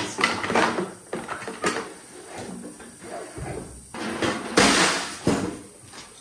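Knocks and clatter of a Yard Machines snowblower being handled, then a loud scraping clunk about four and a half seconds in, with another sharp knock soon after, as the machine is tipped forward onto its auger housing.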